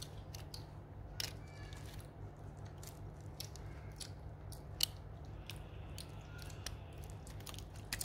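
Scattered small plastic clicks and crinkles as fingers work the cover of a Manitou fork remote lockout lever and the bubble wrap it is held over, with one sharper click about five seconds in. A steady low hum lies underneath.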